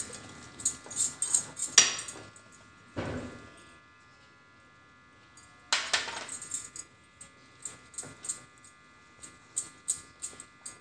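Metal wire whisk clinking against a glass bowl as flour is beaten into a thick batter: quick runs of light clicks, a few louder knocks about two and three seconds in, a quieter pause, then more clicking.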